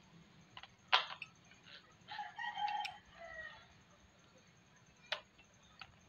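A rooster crowing once, faint and from afar, about two seconds in, its last note lower and falling. A few sharp clicks come before and after it, the loudest about a second in.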